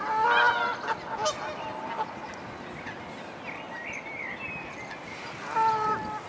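Geese honking: a short run of honks at the start and another honk near the end.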